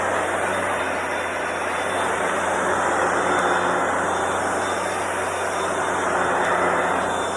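Hoover PowerDash Pet carpet cleaner running, its motor and suction making a steady whirring rush with a low hum, the level swelling and easing a little every few seconds.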